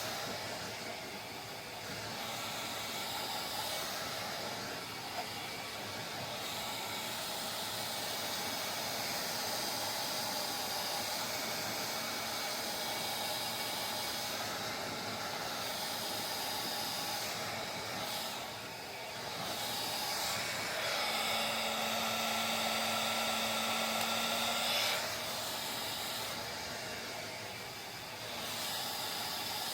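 Handheld hair dryer blowing: a continuous hiss of air with a motor whine, its loudness and tone shifting a few times as it is moved about.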